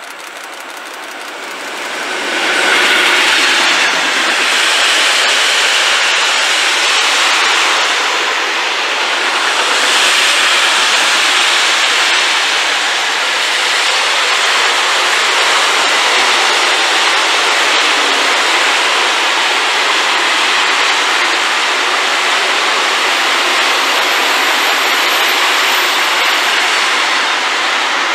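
Freight train of covered sliding-wall wagons passing close by: the sound swells over the first three seconds as the locomotive comes up, then holds loud and steady with the rush of wheels on rail as the long line of wagons goes by. A faint high squeal comes in near the end.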